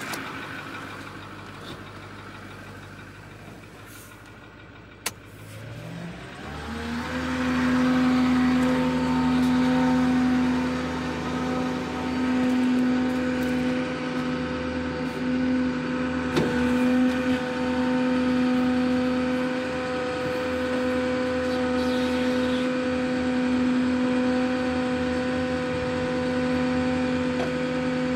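The diesel F550 tow truck running quietly, then, just after a click about five seconds in, its sound rises in pitch over about a second. It settles into a loud, steady whine that holds.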